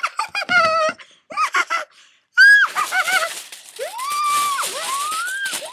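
A woman's high-pitched, wordless shrieks and squeals of disgust: several short broken cries in the first two seconds, then longer cries that rise, hold and fall away.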